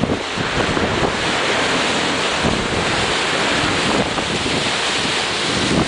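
Strong wind buffeting the microphone over the steady rush of a choppy sea and breaking spray.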